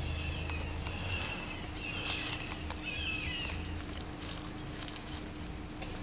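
Air-conditioner condenser unit running with a steady hum, its compressor under load. Over it come a few short bird chirps, mostly in the first half.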